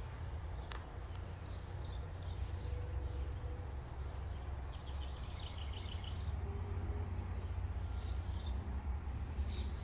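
A steady low rumble with birds chirping over it now and then: a run of quick chirps about five seconds in, and more short calls near the end.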